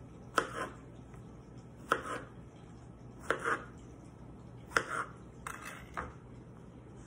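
Kitchen knife cutting strawberries on a cutting board: five sharp knocks of the blade striking the board, about one every second and a half, each with a brief scrape of the cut.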